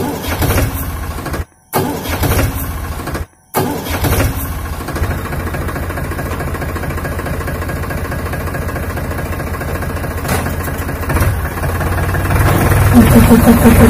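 Powertrac 439 tractor's diesel engine starting and then running steadily, with the sound cutting out briefly twice in the first few seconds. Near the end it gets louder.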